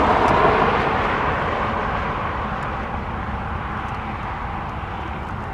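Jet airliner passing, the broad rush of its engines loudest at first and fading steadily as it moves away.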